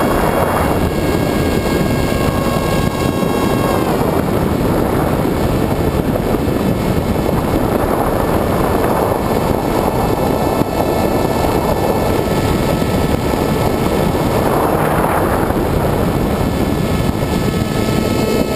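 Wind rushing over a camera mounted on a Multiplex EasyStar RC glider in flight, with the whine of its electric pusher motor for the first few seconds. The whine dips and falls away about four seconds in. After that it is mostly wind noise that swells and fades several times.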